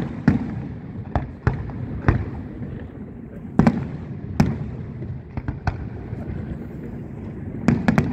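Aerial firework shells bursting overhead: about ten sharp bangs at uneven intervals, some in quick pairs.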